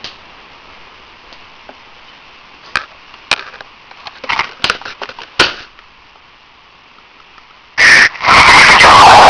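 A loud, harsh snore heard over a phone line, so loud that it distorts, coming in near the end after a few faint clicks over line hiss.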